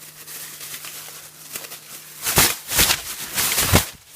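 Stapled paper mailer being pulled and torn open by hand: low rustling, then three loud tearing bursts in the second half as it comes open.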